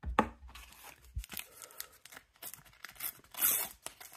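A Panini sticker packet being torn open and its wrapper crinkled, with a run of irregular rustling rips and a louder tear about three seconds in.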